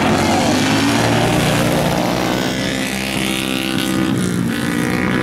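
Several speedway motorcycles with single-cylinder engines racing on an ice track: a loud, continuous blend of overlapping engine notes that shift in pitch as the riders accelerate. The sound eases slightly about halfway through.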